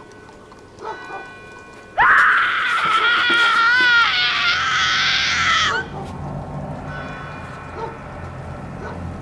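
A high-pitched human scream that starts suddenly about two seconds in, wavers in pitch, and cuts off abruptly nearly four seconds later. A faint low drone follows.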